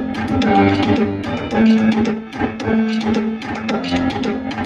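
Guitar music with a steady beat playing from an OUD OD-BT578FM portable Bluetooth speaker.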